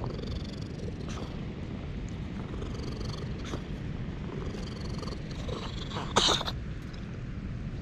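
Orange tabby cat purring steadily as a low, rapid rumble, close to the microphone. A short rustle comes about six seconds in.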